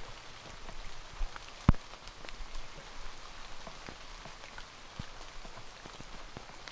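Rain falling on rainforest foliage: a steady patter with scattered drops ticking irregularly, and one louder sharp thump a little under two seconds in.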